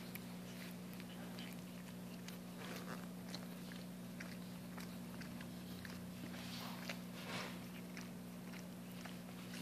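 Soft, scattered wet clicks and smacking sounds from newborn Scottish terrier puppies and their mother, over a steady low hum.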